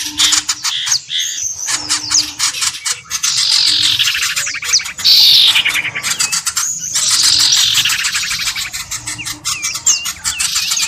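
A bird-lure recording of many small birds calling at once: dense chattering with rapid trills, fast repeated chips and several falling whistled notes.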